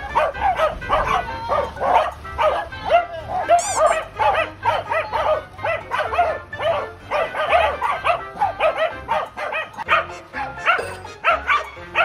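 Several Welsh corgis barking and yipping in rapid, overlapping barks.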